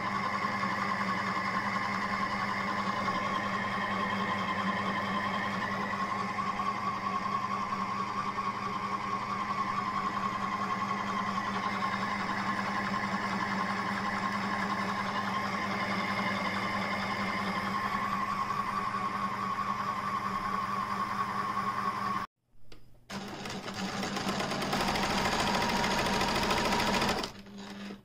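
Pfaff Creative 1469 sewing machine's motor running steadily while it winds a bobbin, a constant whine. About 22 seconds in it stops abruptly, and after a short gap the machine runs again, stitching, a rougher and busier sound that stops shortly before the end.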